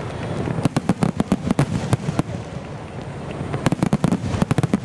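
Starmine fireworks barrage: shells bursting in rapid succession with many sharp bangs and crackles, in two dense flurries with a brief lull between them.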